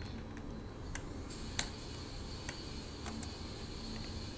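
Flathead screwdriver prying at the plastic retaining clips along the top edge of an Acer Aspire 5741 laptop keyboard: a few scattered small clicks and ticks, the loudest about one and a half seconds in.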